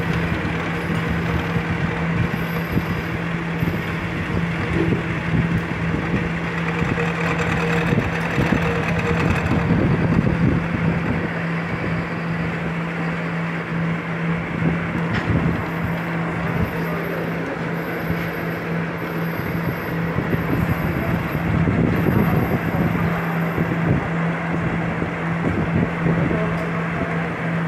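Milling machine running with an end mill cutting a keyway into a round metal shaft: a steady motor hum under the noise of the cut, which swells briefly about ten seconds in and again around twenty-two seconds.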